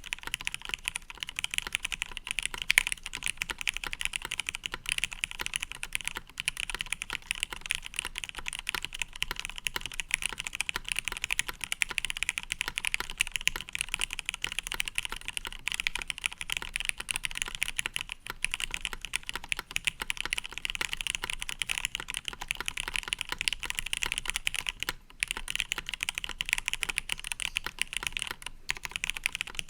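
Fast, continuous typing on a custom mechanical keyboard with lubed and filmed Retooled Cherry MX Black linear switches in a top-mounted aluminium plate, CRP Tulip R3 keycaps and a silicone case dampener. It is a dense stream of key clacks with a couple of brief pauses near the end.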